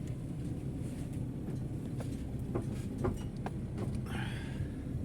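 Van rolling slowly down a rough, wet dirt track, heard from inside the cab: a steady low rumble with scattered knocks and rattles, and a brief harsher scrape about four seconds in.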